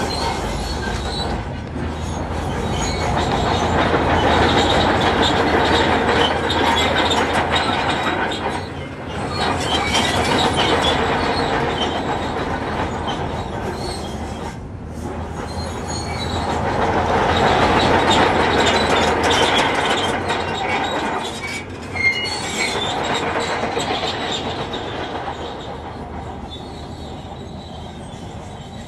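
Shantui crawler bulldozer at work: a steady low engine drone under the grinding, squealing and clanking of its steel tracks, swelling and easing in long surges as it pushes stones. One sharp bang comes about 22 seconds in.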